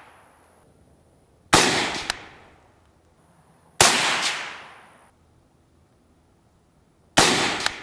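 Three single rifle shots from a Ruger Mini-30 in 7.62x39, fired slowly two to three seconds apart, each a sharp crack followed by a fading echo.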